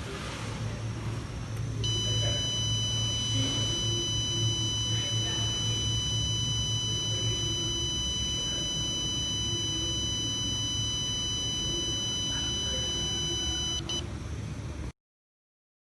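Smoke detector's alarm buzzer going off, sounding one continuous high-pitched tone for about twelve seconds. The alarm starts about two seconds in and cuts off near the end, over a steady low rumble.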